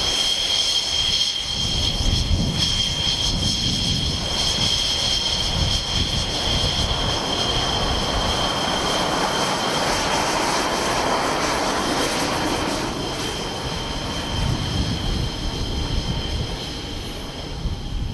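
Chengdu J-20 stealth fighter's jet engines running at taxi power: a steady high whine over an uneven low rumble. The rushing exhaust noise swells around the middle as the jet rolls past.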